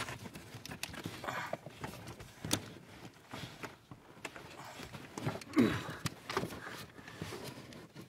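Shifter cables being pushed and worked through the firewall grommet by hand: irregular knocks, clicks and rustling of cable, rubber and plastic trim in the footwell, with a short strained grunt about halfway through.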